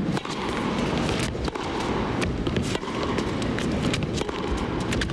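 Tennis rally: racquet strikes and ball bounces as sharp knocks every second or so, with players' footsteps on the court. Under them runs a steady hiss of crowd and broadcast noise.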